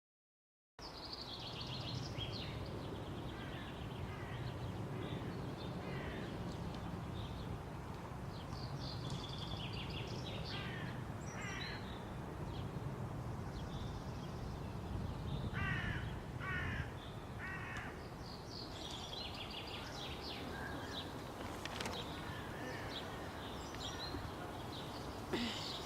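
Outdoor ambience: a steady low background rumble with birds chirping and calling throughout, including three short calls in quick succession a little past halfway. It fades in about a second in after a moment of silence.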